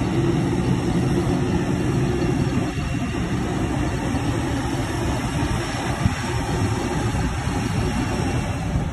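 Jet engines of an Airbus A321neo airliner running at taxi thrust as it rolls past, a steady low drone with hiss above it.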